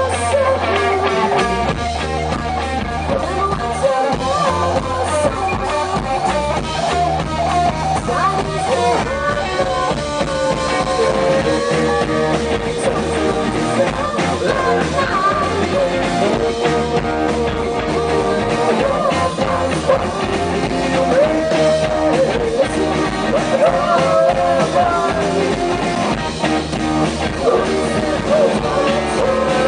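Rock band playing live: a woman singing lead over electric guitar, bass guitar and a drum kit.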